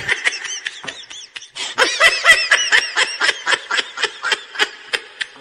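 High-pitched laughter: a rapid run of short "ha" notes, each rising and falling in pitch, about four a second. It grows louder after a brief dip about a second and a half in.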